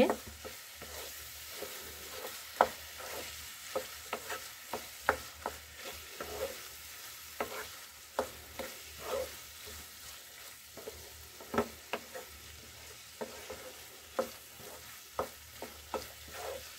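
Spatula stirring and scraping chicken mince and peas in a non-stick kadai while it is dry-fried (bhuna) with spices, with irregular scrapes and clicks about once or twice a second over a faint steady sizzle.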